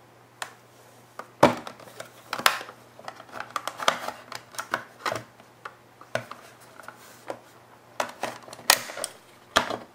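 Plastic enclosure of a WD My Passport portable hard drive being pried open with a flat metal tool: a run of sharp clicks and snaps as the case's clips give and the tool works along the seam. The loudest snaps come about one and a half seconds in and near the end.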